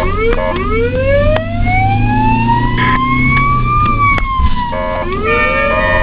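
Ambulance siren heard from inside the cab: one long wail that climbs slowly for about three seconds and then falls, switching about five seconds in to quick, repeated short rising sweeps, over the vehicle's steady low engine hum.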